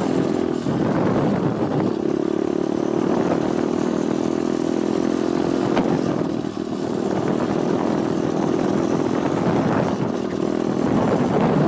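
Pit bike engine running steadily while being ridden, easing off briefly about six and a half seconds in before picking up again.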